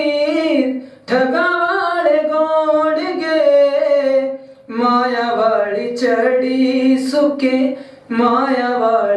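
A single voice singing a Punjabi song in long, sliding held notes, with short breaks between phrases about a second, four and a half seconds and eight seconds in. No instruments are heard alongside it.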